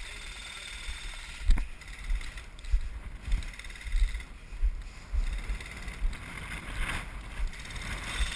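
Footsteps of a player moving over the ground, low thuds about twice a second picked up by a body-worn camera, with one sharp crack about a second and a half in.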